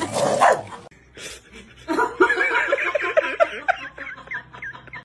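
A pet animal making a quick run of short, high-pitched cries that rise and fall, a few each second, starting about two seconds in. A brief loud, noisy stretch comes before it at the start.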